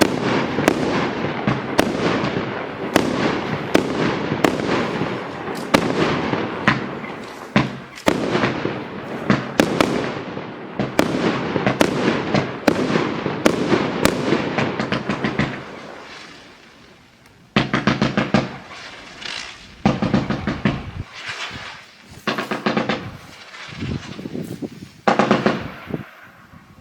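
Consumer fireworks cake firing: a fast string of shots, two or three a second, each a sharp crack with a fading tail, for about fifteen seconds. After a short lull, several bursts of rapid crackle follow in groups.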